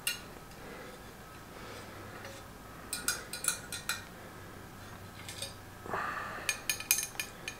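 Allen wrenches being handled: light metallic clinks in two clusters, about three seconds in and again near the end, with a brief rustle just before the second cluster.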